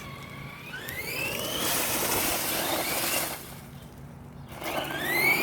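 Redcat Volcano EPX Pro RC monster truck's brushless electric motor whining up in pitch as it accelerates. It does so twice, about a second in and again near the end, with a stretch of loud hissing noise between the two.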